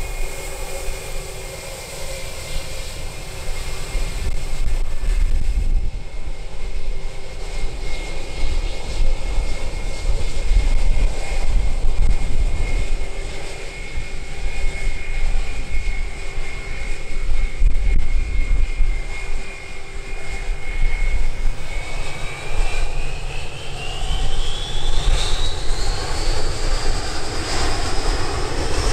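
Airbus A320-232's IAE V2500 turbofans running with a steady whine at low power, then spooling up with a rising whine for take-off thrust about three-quarters of the way through. Heavy low rumble of high wind on the microphone runs underneath.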